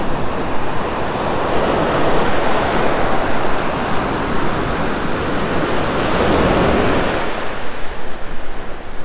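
Ocean surf breaking and washing up a sandy beach, with wind noise on the microphone. The wash swells twice, about two and six seconds in, and eases near the end.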